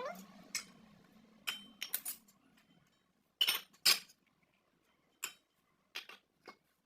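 Kitchen utensils and dishes clinking and knocking in a string of separate sharp clicks, the loudest two close together about three and a half seconds in.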